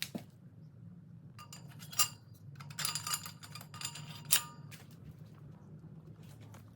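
Metal parts clinking and tapping: a handful of sharp, ringing knocks, the loudest about two seconds in and just past four seconds, over a steady low hum.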